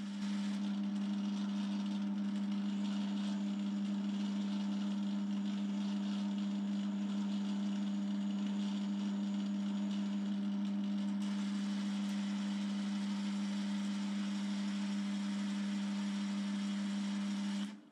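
BL250D bench lathe running steadily through a light threading scratch pass, with the carriage driven along by the leadscrew. It gives an even motor-and-gear hum with one strong low tone, and it cuts off just before the end.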